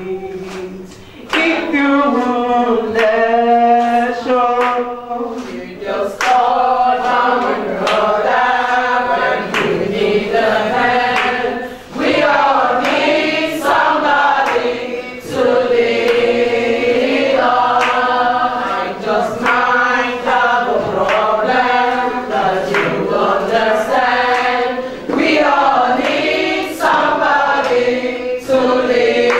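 Group of women singing together, one voice leading on a microphone with the others joining in, in sung phrases that keep going without a break.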